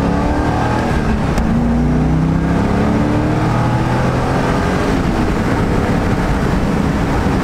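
C5 Corvette's V8 heard from inside the cabin while driving, with road noise: the engine note rises, dips briefly about a second in, climbs again for a few seconds as the car picks up speed, then levels off. The exhaust is quiet for a Corvette.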